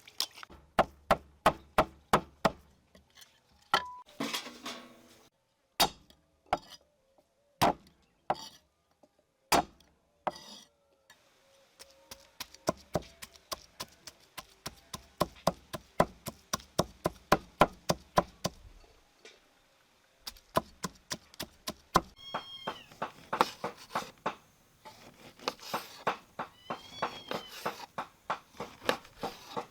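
Knife chopping on a cutting board in quick, even strokes, about three or four a second, pausing now and then. From about two-thirds of the way in, a cat meows a few times over the chopping.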